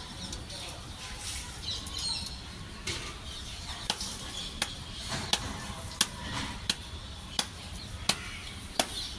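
Hands patting out a maize-and-bajra (pearl millet) rotla dough, palm slapping on dough in an even rhythm of about one slap every 0.7 s, starting about four seconds in, over a low steady rumble.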